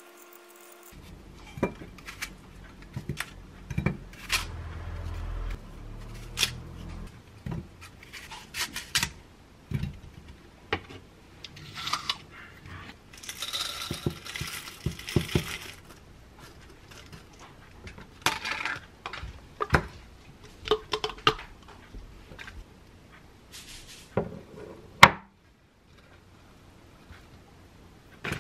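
Close-up kitchen food-prep sounds: a small knife scraping as it peels an apple, then granola rattling as it is poured from a jar into a wooden bowl about halfway through, and spoons scraping and clinking on the bowl and a glass jam jar, with one sharp clink near the end.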